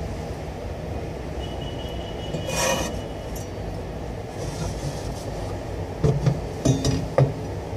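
Kitchen utensils being handled at a plastic cutting board: a clink about two and a half seconds in, then several sharp knocks near the end, over a steady low rumble.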